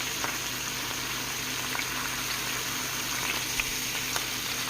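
Catfish frying in melted butter in a pan: a steady sizzle with scattered small pops and crackles.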